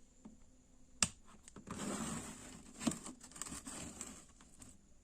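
Clicks and rustling from handling a plug, cord and bulb: a sharp click about a second in, then a few seconds of rustling with another click near the middle.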